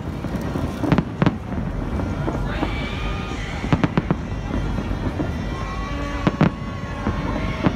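Aerial fireworks shells bursting overhead in a rooftop display. Sharp bangs come at irregular moments, some in quick pairs, over a continuous rumble of crackle and crowd noise.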